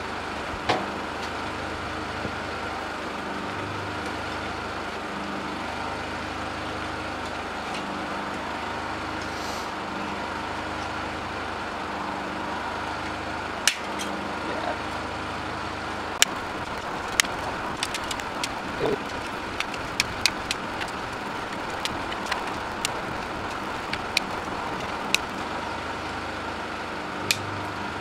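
Bolt cutters snapping through bicycle wheel spokes one after another: about fifteen sharp, irregular snaps starting about halfway through, over a steady background noise.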